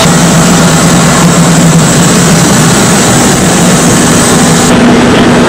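Loud, steady engine noise with a low hum running throughout.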